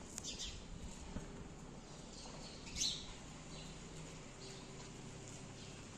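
Small birds chirping a few times, the loudest chirp about three seconds in, over faint street ambience with a low steady hum.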